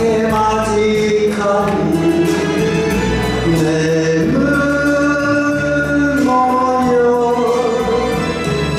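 A man singing his solo part of a Japanese duet ballad into a microphone over recorded backing music, amplified through the hall's PA.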